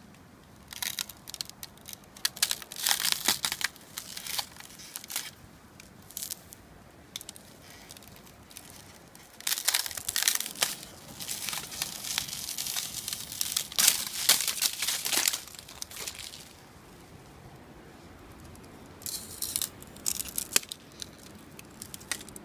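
Ice glaze on tree leaves and twigs crackling and crinkling as a hand bends and peels the frozen leaves, in irregular bursts of sharp crackles with quieter pauses between.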